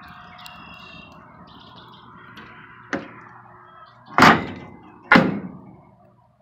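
Insulated cast-iron firebox door of a Central Boiler Classic CL 4030 outdoor wood furnace being shut and latched: a sharp click about three seconds in, then two loud metallic bangs about a second apart, each ringing briefly.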